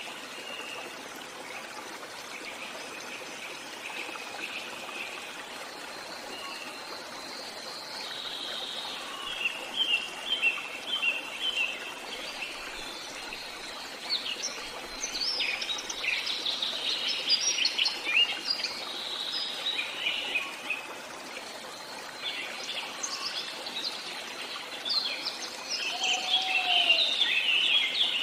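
Small birds chirping over a steady background hiss. The chirps are sparse at first, come in busy clusters from about eight seconds in, and are thickest near the end.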